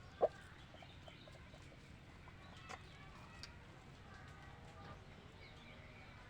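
Chickens calling faintly: scattered short clucks and chirps, with one sharper, louder call about a quarter second in.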